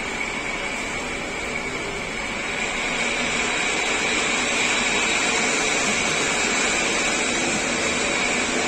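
A motor-driven machine running steadily: a continuous rushing noise with a high steady whine, a little louder from about three seconds in.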